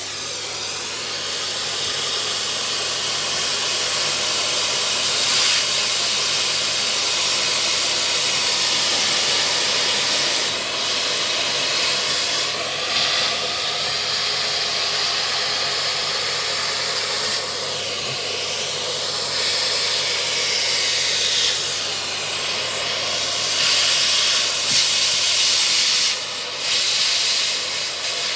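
Dyson Big Ball Multi Floor 2 vacuum cleaner running with its crevice tool on a computer keyboard: a steady rush of suction air over a low hum, its hiss shifting in tone every few seconds as the nozzle moves.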